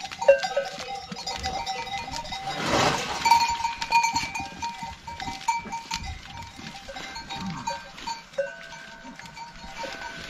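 Bells on a herd of goats and kids clinking and ringing as the animals move about, with a short rasping noise about three seconds in.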